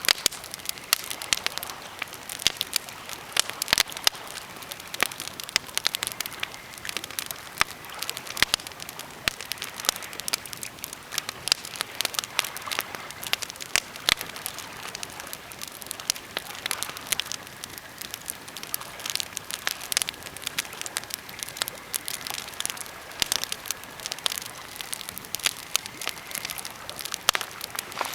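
Birch and pine campfire crackling, with frequent sharp pops and snaps at irregular intervals.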